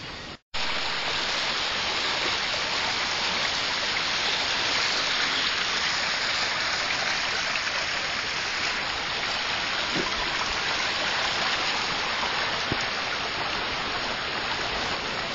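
Loud, steady rush of water, which cuts in abruptly about half a second in.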